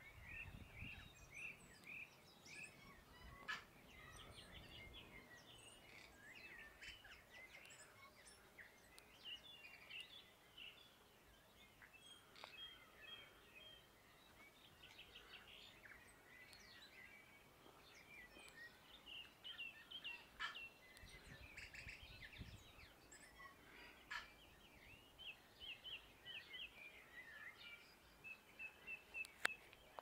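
Tui singing faintly: a continuous run of short, varied whistled notes mixed with sharp clicks.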